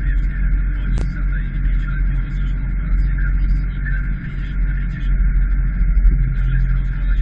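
Fendt 718 Vario tractor's six-cylinder diesel engine running steadily as the tractor drives slowly, heard from inside the cab, with a single sharp click about a second in.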